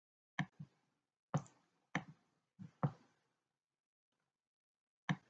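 Sharp small clicks, several in quick pairs, from writing by hand on the computer screen with a pointing device as each pen stroke starts and ends.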